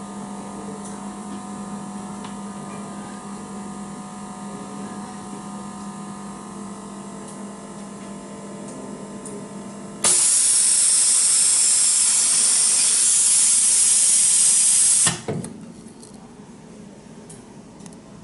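Pulse heat press running a bonding cycle on an iPhone touch flex cable: a steady electrical hum with a low buzz for about ten seconds, then a loud hiss of air for about five seconds that cuts off suddenly with a thump.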